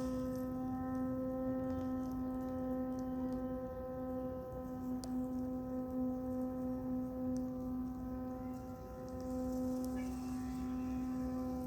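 Vietnamese kite flute (sáo diều) of the 'còi tàu' train-whistle kind sounding one steady, low hooting tone with many overtones, swelling and dipping slightly in loudness.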